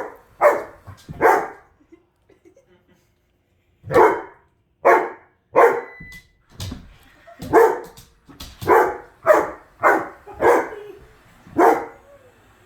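Alaskan husky barking at a robot vacuum, about a dozen single barks. After the first two there is a pause of about two seconds, then the barks come faster, roughly one every half second to second.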